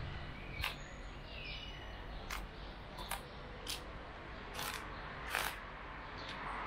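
Footsteps on dry leaves and dirt, short sharp crackles at uneven intervals of roughly half a second to a second and a half. A few brief bird chirps come in the first two seconds, over a steady outdoor background hum.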